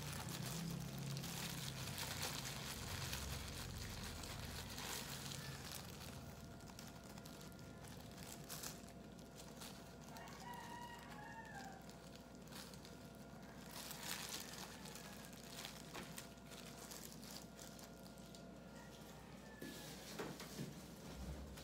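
A rooster crowing once, about ten seconds in, over a quiet background with a few soft handling clicks.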